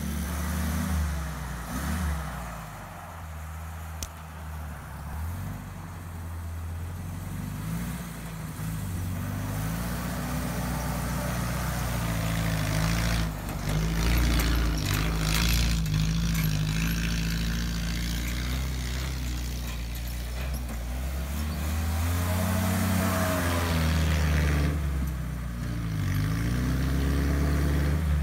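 1965 Jeep CJ-5's F-134 four-cylinder engine, fitted with a header and a reground cam, running and revving as the Jeep drives, its pitch rising and falling with the throttle. A rush of hissing noise about halfway through is the loudest part.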